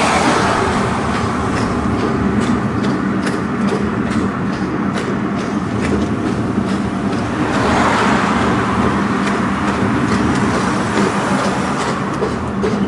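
Horse-drawn tram car rolling along its street rails: a steady rumble of iron wheels on track with scattered clicks and knocks, and a louder rush of noise about eight seconds in.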